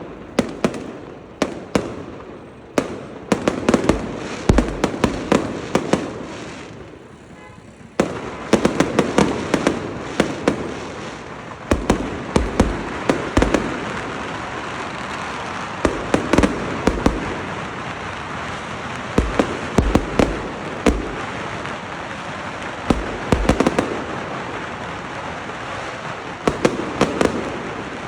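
Fireworks and firecrackers going off in a dense, rapid run of sharp cracks and louder bangs. The barrage dies down around six seconds in, then starts again abruptly at about eight seconds and goes on.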